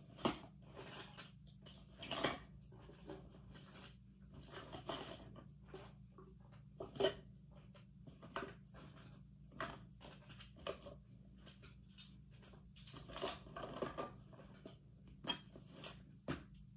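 Small toiletry items and containers rustling and clicking as they are handled and packed back into a fabric cosmetic pouch by hand, an irregular run of light knocks with a few sharper ones.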